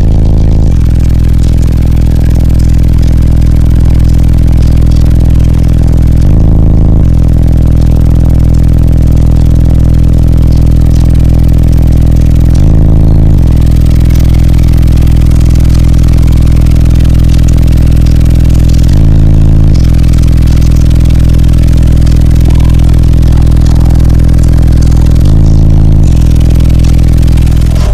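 Four Orion HCCA subwoofers in a custom sixth-order bandpass box playing a bass track very loud, heard inside the car: a deep sustained bass note that jumps briefly to a different note about every six seconds.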